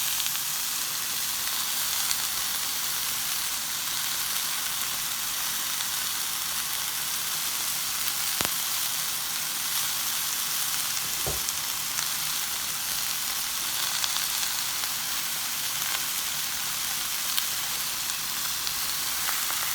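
Chicken breast, cabbage and seasonings sizzling in a non-stick pot: a steady frying hiss, with two light knocks about eight and eleven seconds in.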